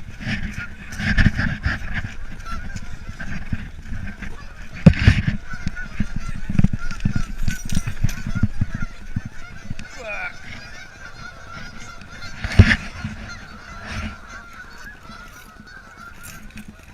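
A flock of Canada geese honking over and over. Two loud knocks, one about five seconds in and a louder one past the middle.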